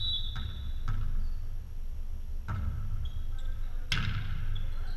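Indoor volleyball being played in an echoing gymnasium: dull thuds of the ball being played. A sharp, loud ball contact about four seconds in is the loudest sound, with a brief high-pitched tone at the very start.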